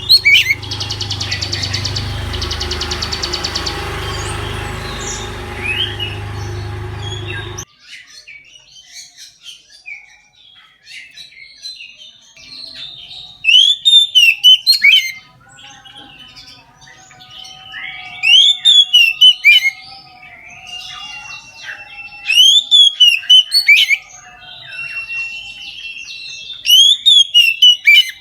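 Oriental magpie-robin (kacer) singing in full voice: loud, rising and falling whistled phrases come in short bursts about every four to five seconds. At the start a fast trill plays over a steady low hum, which cuts off abruptly about seven seconds in.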